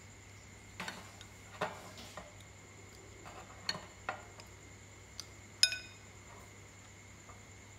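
Tableware clinking as a meal is eaten: chopsticks and a metal spoon knocking against a ceramic rice bowl and a glass soup bowl, about seven light knocks. The loudest, a little past halfway, rings briefly, like metal striking glass.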